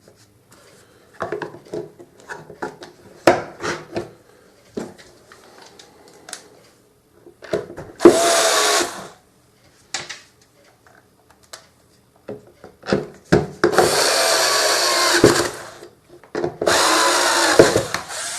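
Electric screwdriver driving screws into a vacuum cleaner's plastic housing: three short runs, the last two about two seconds each. Before them, a series of clicks and knocks as the parts are handled and fitted together.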